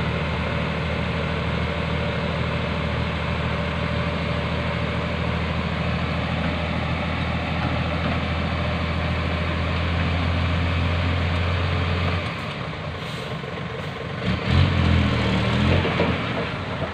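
Isuzu Deca FVM 230 dump truck's diesel engine running steadily while the hydraulic hoist tips the loaded bed and soil slides out. The steady hum drops off about twelve seconds in. A couple of seconds later comes a louder, uneven stretch of engine sound whose pitch rises and falls.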